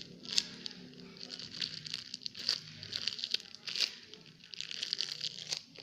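Plastic packaging crinkling and crackling as it is handled, with irregular small clicks and a few sharper crackles.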